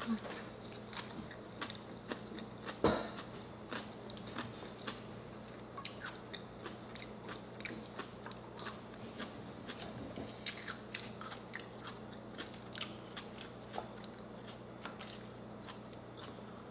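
Chewing of seafood: soft, close-up mouth clicks and smacks at irregular intervals, with one louder click about three seconds in.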